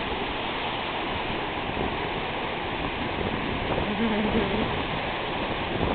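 Small ocean waves washing and rushing in the shallows, a steady, even wash of surf.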